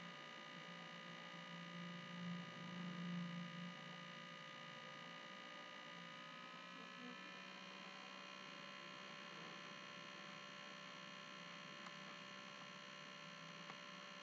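Near silence with a faint steady electrical hum and a few thin high tones. A low hum swells slightly between about two and four seconds in, and some of the high tones shift a little in pitch about six seconds in.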